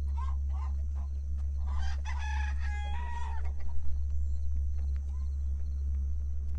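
Chickens clucking, then a rooster crowing once, about two seconds in. A steady low rumble runs underneath.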